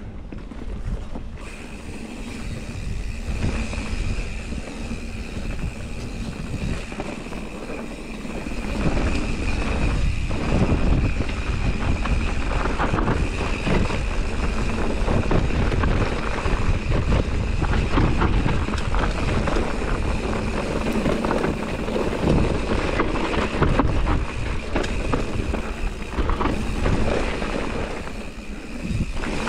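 Mountain bike rolling fast down a dirt singletrack: knobby tyres on dirt, the bike rattling over the bumps, and wind buffeting the camera microphone. A steady high-pitched buzz runs under it. Everything gets louder about nine seconds in, as the speed picks up.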